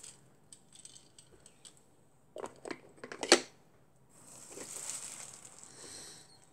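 Handling of a small die-cast toy car keychain: plastic wrapping rustling, small clicks, then a few sharp knocks and clicks in the middle, the loudest just past three seconds as the car is set down on a plastic turntable, followed by a soft rustle.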